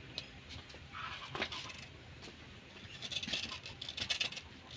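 Kitchen knife shaving thin slices off a fresh bamboo shoot: a string of light, crisp cuts and scrapes, coming faster in the last couple of seconds.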